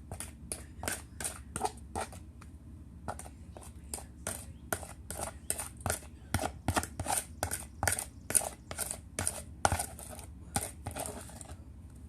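A metal spoon scraping and clinking against a dish as pie filling is scooped and spread, in quick repeated strokes about three a second, with a short pause about two seconds in; the strokes stop near the end.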